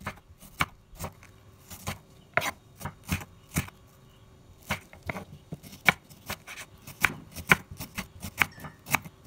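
Kitchen knife slicing a red onion on a wooden cutting board: a run of sharp, irregular knocks as the blade strikes the board, about two or three a second, with a short pause a little before the middle.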